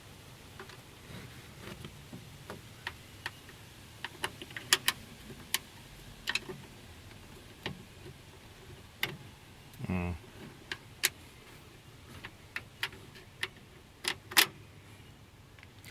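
Irregular sharp clicks and taps of metal parts and hand tools inside a Ford Windstar door panel as the interior door handle assembly is bolted in, with a brief grunt about ten seconds in.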